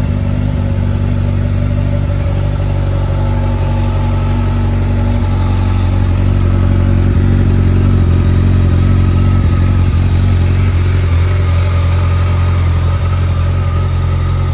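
Honda CBR1100XX Blackbird's inline-four engine idling steadily through a BEET slip-on carbon silencer, getting slightly louder about halfway through.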